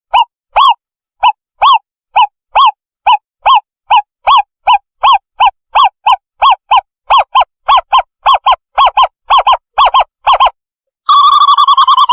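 Owlet decoy call played as a bird-trapping lure: a series of short, clear, rise-and-fall hoots that speed up steadily, breaking into a fast warbling trill near the end.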